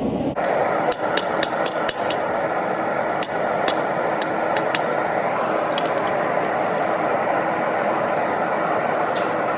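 Hammer blows on hot steel at the anvil while forging a ball peen hammer head. There is a quick run of strikes in the first couple of seconds, then fewer and more spaced out, over a steady rushing noise.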